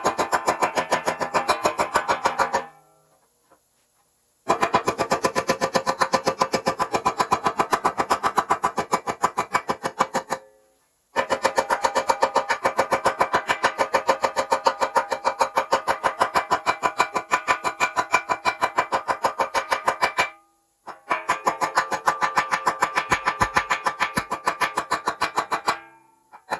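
Arc welding on aluminium, a rapid even pulsing buzz, in four runs of welding that stop and start abruptly as the arc is broken and struck again.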